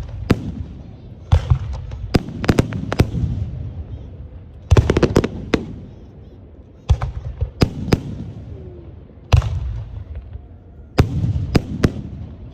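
Aerial firework shells bursting: about a dozen sharp booms, some coming in quick clusters, each trailing off in a low rumbling echo.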